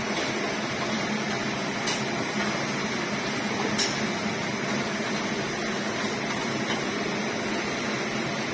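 Minced garlic frying in oil in a steel wok, a steady sizzle, with a metal ladle knocking against the wok twice as it is stirred.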